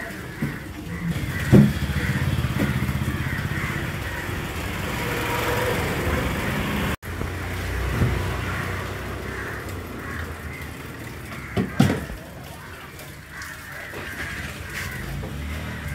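An engine running steadily, louder in the first half, with two sharp knocks, one about a second and a half in and one near twelve seconds.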